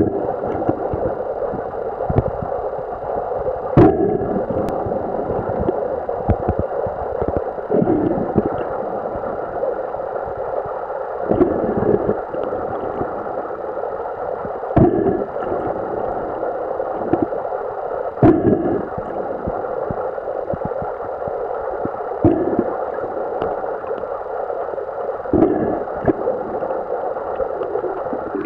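Muffled underwater sound of lake water, as picked up by a camera under the surface: a steady rushing hum with a deeper surge about every three to four seconds.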